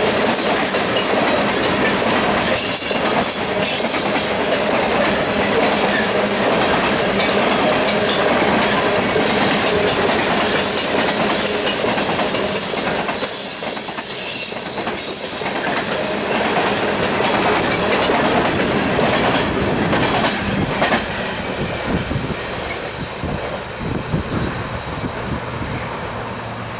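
Freight cars of a BNSF coal train rolling past at speed: a dense rumble and clatter with repeated clicks of wheels over rail joints. About three quarters of the way through it drops off as the last cars pass and pull away.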